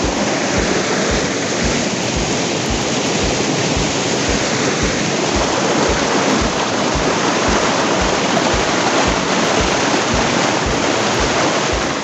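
Loud, steady rushing of a mountain river's fast water or cascade, an unbroken hiss of white water.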